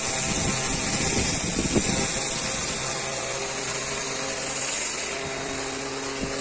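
Pressure washer running steadily: a motor and pump hum under the steady high hiss of the water jet.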